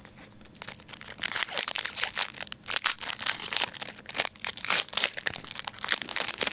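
A trading card pack's wrapper crinkling sharply and irregularly as it is handled and torn open by hand, starting about a second in.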